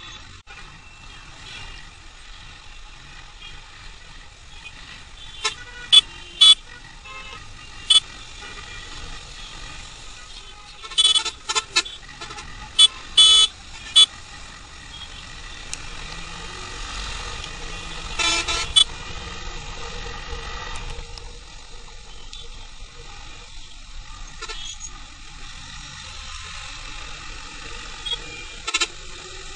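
Vehicle horns honking in heavy traffic: a dozen or so short toots, several in quick succession, and one longer blast a little past the middle, over steady traffic and road noise.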